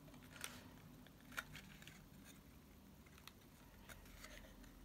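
Faint rustling and a few light ticks of patterned paper being handled and pressed together to stick a double-sided-tape seam.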